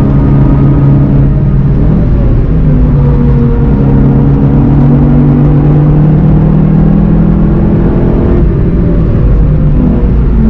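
VW Golf GTI TCR's turbocharged four-cylinder engine running hard under a low rumble of road and tyre noise, heard from the car at track speed. The engine note shifts about two seconds in, climbs slowly through the middle, and drops abruptly near the end as the car slows for a corner.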